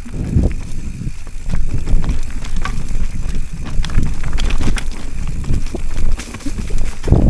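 Giant Trance full-suspension mountain bike riding down a rough trail: irregular rattles and knocks from tyres, chain and frame over roots and rocks, over a constant rumble of wind on the microphone.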